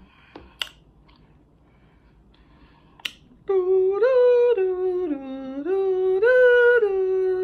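A person humming a short tune, holding a few steady notes that step up and down, starting about halfway through. Before it, two sharp clicks about two and a half seconds apart.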